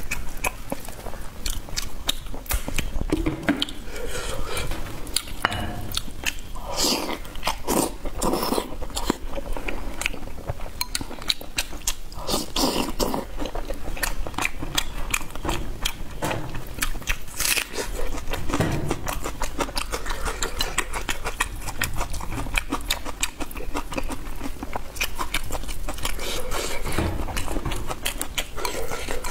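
A person chewing and biting food close to the microphone, with a dense run of crunching and crackling clicks and wet mouth sounds.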